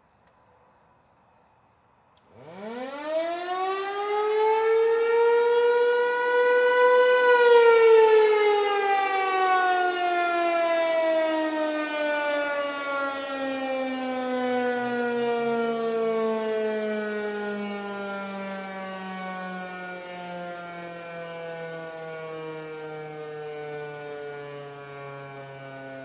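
American Signal T-128 mechanical outdoor warning siren sounding its curfew signal: it starts about two seconds in, its wail climbing quickly to full pitch, then is cut off and winds down in a long, slowly falling wail as the rotor coasts.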